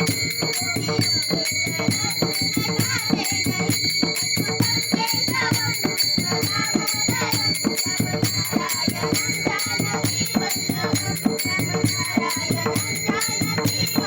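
Music: an instrumental passage carried by a fast, steady rhythm of shaken, jingling percussion.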